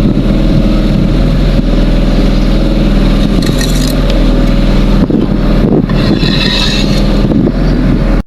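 An engine running steadily at an even speed, close and loud.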